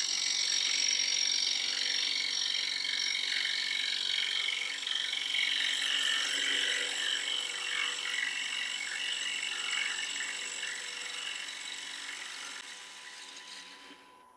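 Bowl gouge cutting into the inside of a spinning sycamore bowl on a wood lathe: a continuous hiss of shavings coming off the cut, over the lathe's steady whine. The cut grows quieter over the last few seconds and stops near the end.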